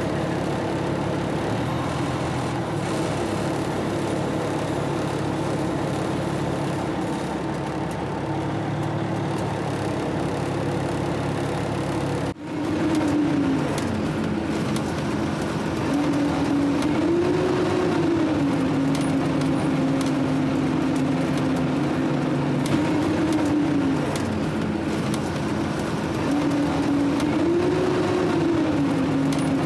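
Fire truck engine running, heard from inside the cab as the truck drives. In the second half its pitch rises and falls back several times as it speeds up and settles.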